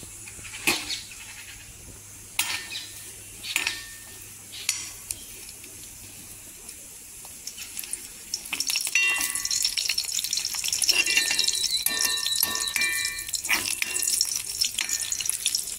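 Pieces of asafoetida frying in a little oil in a metal kadai, stirred with a steel ladle. Separate clinks and scrapes of the ladle on the pan come first. About eight seconds in, a louder, steady crackling sizzle begins, with metal scraping through it.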